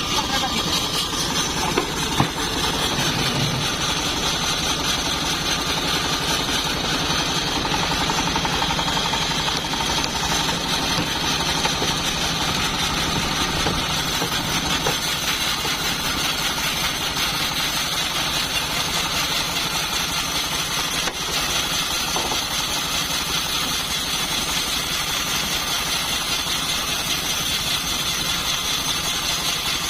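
Homemade bandsaw sawmill running steadily with a continuous engine-like drone, with one short click about two seconds in.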